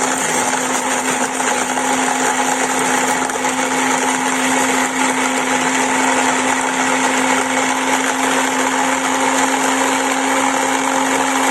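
Electric blender running steadily at one speed, chopping chillies, garlic and salt into a coarse paste.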